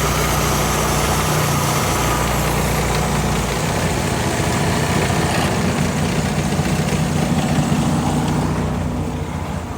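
Semi truck's diesel engine idling steadily, with a steady hiss over it that thins out near the end.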